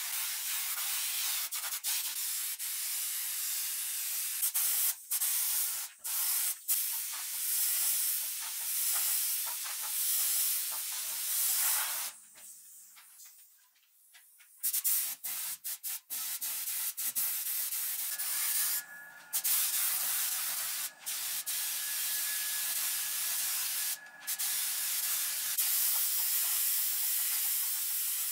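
Pressurised spray hissing in long stretches, cut off briefly several times and pausing for about two seconds near the middle. A faint steady whine and low hum join in for several seconds in the second half.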